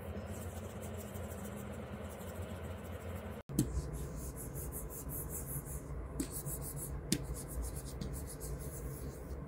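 Stylus nib on the glass screen of a Huion Kamvas Pro 19 pen display: close-miked strokes scratching across the surface, and a few sharp taps of the pen on the screen after a break about three and a half seconds in.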